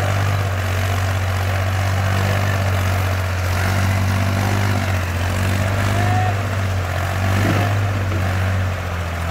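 New Holland 5500 tractor's diesel engine running steadily under heavy load as it pulls a loaded trailer of about 27 tonnes, a deep even drone.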